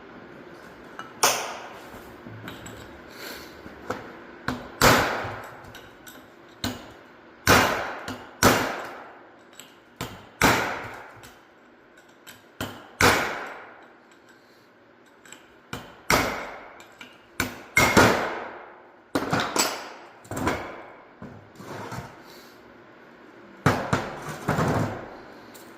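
A series of irregularly spaced hammer blows on metal during the teardown of a Toyota limited-slip differential, each strike ringing briefly, with a few quick double taps.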